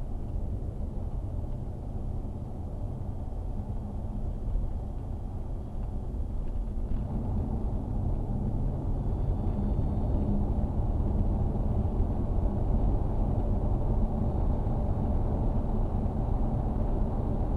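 Steady low road and engine rumble heard inside a car driving at motorway speed, growing a little louder from about six seconds in.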